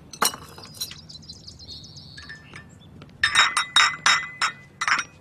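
Metal teaspoon stirring tea in a porcelain teacup. A few light clinks come near the start, then from about three seconds in there is a quick run of ringing clinks against the cup, about five a second.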